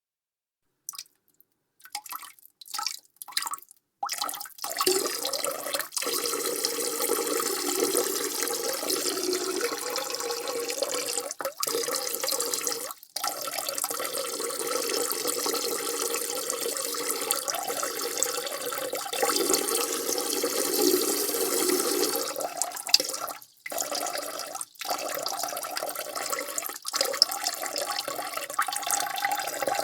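A man urinating into a toilet bowl: a few short spurts starting about a second in, then a steady stream splashing into the water, broken by brief pauses now and then.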